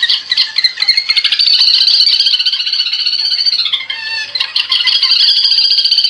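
A recorded cuốc biển bird call used as a night-trapping lure, played loud through a 5 W 8-ohm horn tweeter driven by a small amplifier. It is a high-pitched, rapidly pulsing call that dips briefly about four seconds in as the horn is swung around.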